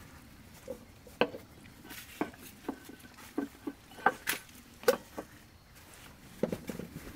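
Stainless steel tumblers and their plastic lids being handled on a wooden table: a lid pressed onto a cup and another lifted off, with a string of light knocks and clinks.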